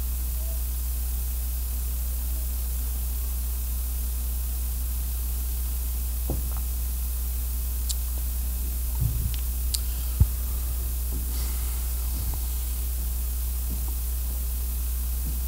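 Steady low electrical hum and hiss from a live microphone line, with a few soft knocks and one sharp thump about ten seconds in.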